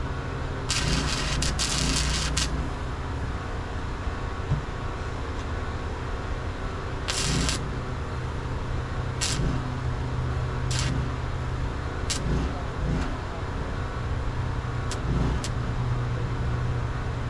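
Engine running steadily at a low hum, with several short hissing bursts of noise over it, the longest near the start.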